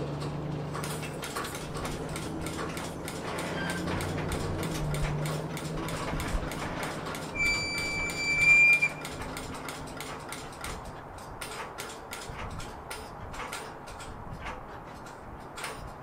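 Railroad cars rolling past, with repeated clicks and clatter from the wheels and a low steady hum that fades after the first few seconds. About halfway through comes a brief high squeal, the loudest sound, rising slightly before it cuts off.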